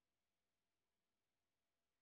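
Near silence: no sound beyond a faint steady hiss.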